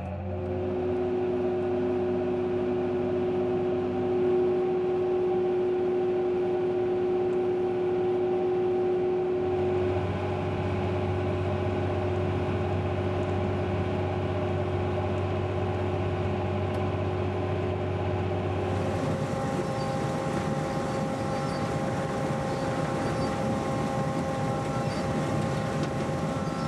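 Farm machinery running steadily with a constant hum and whine, changing abruptly twice as one running machine gives way to another.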